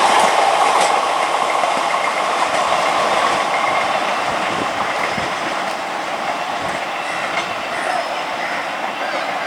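Indian Railways passenger train rolling past, coach wheels clattering over the rails in a steady rumble that slowly fades.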